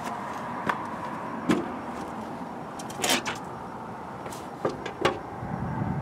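Scattered knocks, scuffs and scrapes of boots and hands on the steel track and platform of an International TD6 crawler as a man climbs up onto the seat. The loudest is a scraping scuff about three seconds in, with a few sharp knocks near the end.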